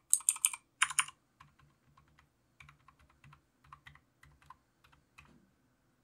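Typing on a Redragon K580 mechanical keyboard with clicky Outemu Blue switches. A quick run of loud key clicks comes in the first second, then sparser, fainter keystrokes, which stop a little after five seconds.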